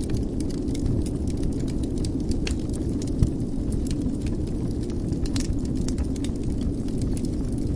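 Wood fire burning in a fireplace: a steady low rumble of flames with scattered crackles and pops, one sharper pop about three seconds in.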